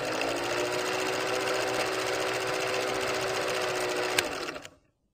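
Film projector sound effect under a vintage film-leader countdown: a steady mechanical clatter with a held hum, a single click about four seconds in, then cutting off abruptly.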